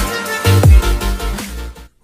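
Electronic intro music with heavy bass and drum hits. A deep bass note drops in pitch about half a second in, and the music fades out just before the end.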